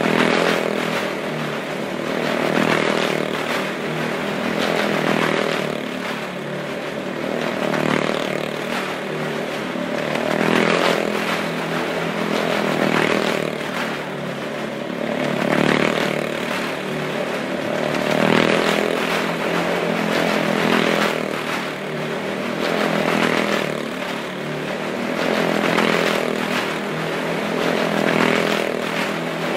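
Motorcycle engine running hard as it circles a wall-of-death drum. The sound swells and fades about every two and a half seconds as the bike passes round.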